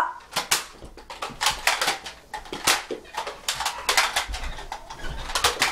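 A string of irregular sharp clicks and knocks, several a second.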